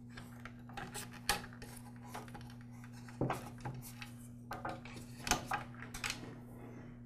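Insulated wires being pulled and handled against a plastic handle housing: scattered light clicks, taps and rustles, with a couple of louder clicks about three and five seconds in, over a faint steady hum.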